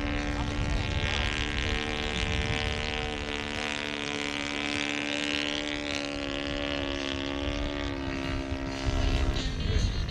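Tiger Moth biplane's engine and propeller droning steadily in flight during a low pass, getting louder near the end.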